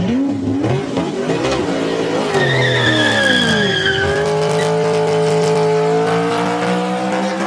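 A vehicle engine revving, its pitch sweeping up and down and then holding a slowly rising note, with a high steady squeal like tyres for about a second in the middle.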